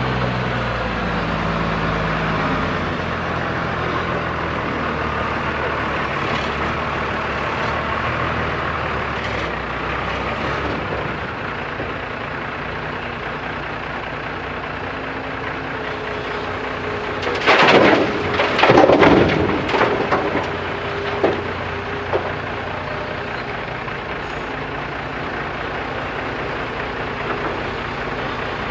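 JCB 3DX backhoe loader's diesel engine running steadily while it works, with a few loud, noisy bursts a little past the middle.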